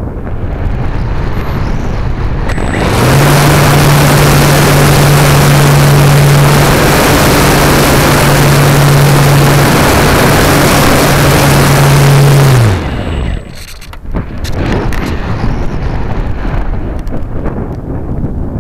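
Electric motor and propeller of a Radian powered glider: the motor comes on about three seconds in with a steady hum over loud rushing air, runs under power, then is cut near the end of the middle stretch and its pitch winds down. Wind noise on the microphone fills the unpowered stretches before and after.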